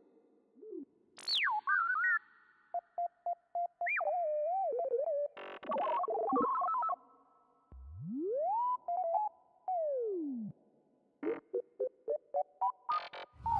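Synthesizer bleeps and pitch glides: scattered short electronic blips, a long upward sweep that holds and then slides back down, and near the end a quick run of short blips climbing in pitch.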